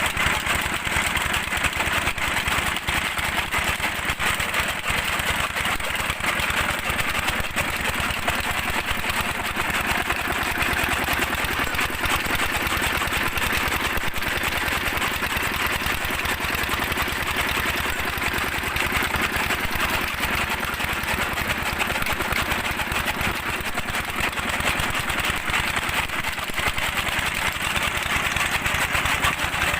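Stationary diesel engine running steadily with a rapid, even beat, driving a chaff cutter, with the cutter's clatter and rushing noise over it.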